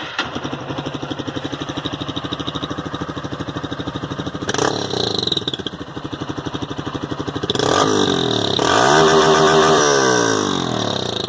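Honda CG 160 Fan's single-cylinder four-stroke engine running through a Roncar ML aftermarket exhaust, idling with a fast, even exhaust pulse. The throttle is blipped briefly about four seconds in, then revved up and let back down to idle near the end.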